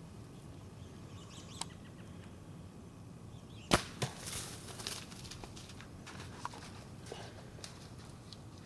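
A bow shot at close range: a sharp crack as the bow is released, and about a third of a second later a second, smaller smack of the arrow striking the whitetail buck. After that comes rustling and the snapping of twigs as the deer runs off through the brush.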